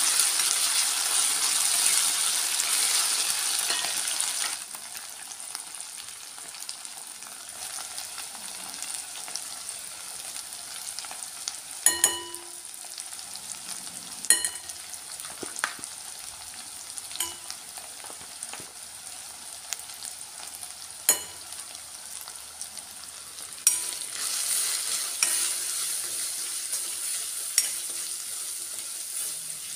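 Onion, tomato and green chillies frying in oil in a stainless steel wok, sizzling loudly, then quieter after about four seconds. A steel spoon clinks and rings against the pan every few seconds, and the sizzling grows louder again near the end as the masala is stirred.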